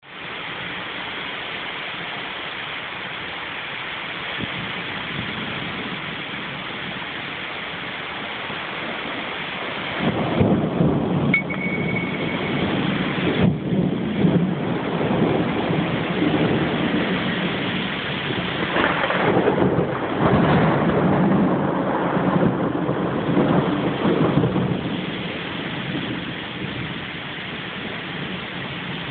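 Thunder after a nearby lightning flash: steady rain at first, then about ten seconds in a long rolling rumble of thunder that swells several times over some fifteen seconds and dies away, leaving the rain.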